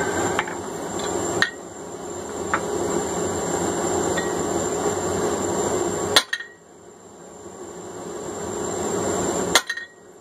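Hand hammer striking a fuller set on a hot steel hammer billet: a handful of single ringing blows, a second or more apart, the last two loudest, over a steady rushing noise.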